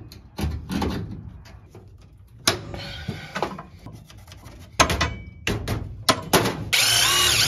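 Cardboard and hand tools being handled: scattered knocks and clicks with scraping and rustling. A louder, sustained rasping scrape starts near the end.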